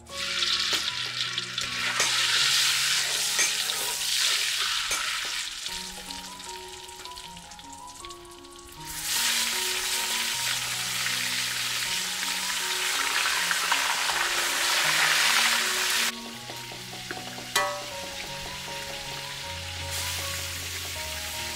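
Fish pieces frying in hot oil in a steel wok. It sizzles loudly at once and eases off, then surges loudly again about nine seconds in and settles to a lower sizzle after about sixteen seconds. Soft background music plays underneath.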